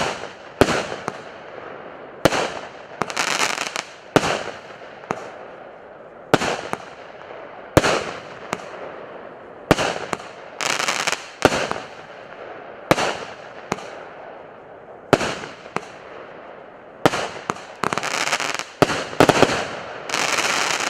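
PC620 'Радость общения' consumer firework battery firing a sequence of shots, sharp bangs every one to two seconds. Several bangs are followed by a short rush of noise from the bursting effects.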